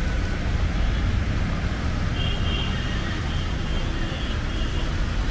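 Road traffic on a city main road: a steady low rumble of passing vehicles with a wash of tyre noise, and a few faint short high-pitched tones about two to four seconds in.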